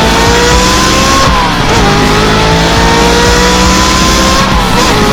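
Car engine accelerating hard through the gears. The pitch climbs steadily, dips sharply at each of two gear changes, then climbs again.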